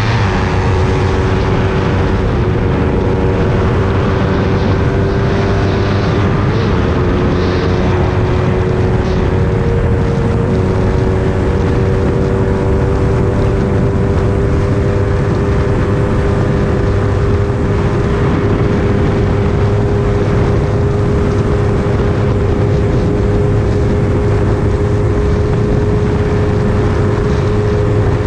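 Motorcycle engine running hard at a steady high speed, its pitch creeping slowly upward, with wind rushing over the microphone.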